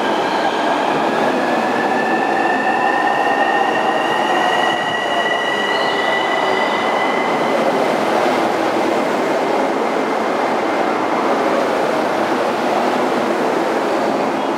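JR East E231 series 1000 electric commuter train rolling in to stop at a station platform: steady wheel-on-rail running noise as the cars pass close by, with a high thin whine that rises slightly in pitch over the first eight seconds and then fades into the noise.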